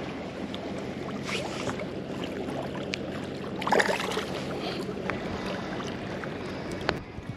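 A released largemouth bass splashes away through shallow water at the shoreline, with a burst of splashing about four seconds in and a smaller one earlier. Water laps steadily against the bank, with a low hum underneath.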